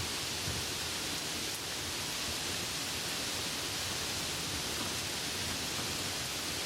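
Soft rain falling as a steady, even hiss with no separate drops or breaks standing out.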